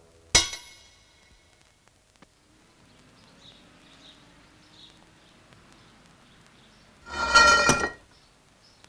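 A sharp metallic clink of a small key dropping through a street drain grate, ringing briefly. After a long quiet stretch, a loud blaring tone lasts about a second near the end.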